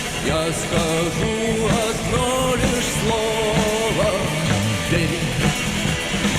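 Live rock band playing, with a bending melodic lead line over drums and bass.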